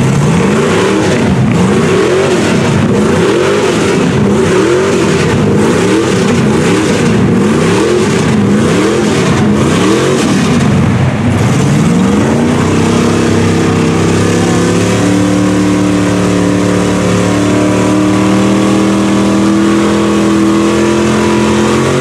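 Naturally aspirated stroked iron-block 6.0 LS V8 (402 cubic inches) in a Chevy mud truck, revved up and down about once a second as the truck works through deep mud. About twelve seconds in it settles into a steady high rev that climbs slowly.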